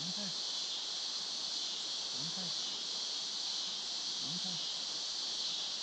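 Steady evening chorus of crickets and other insects, a continuous high-pitched hiss. A short, low, arching call repeats about every two seconds behind it.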